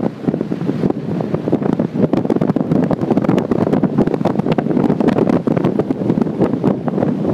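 Heavy wind buffeting the microphone of a vehicle driving fast across desert sand, with the vehicle's engine running beneath it.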